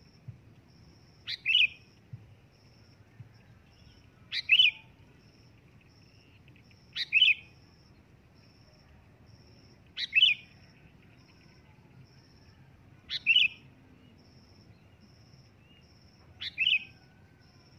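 Sooty-headed bulbul calling loudly: six short calls about three seconds apart, each a quick lead note followed by a louder note.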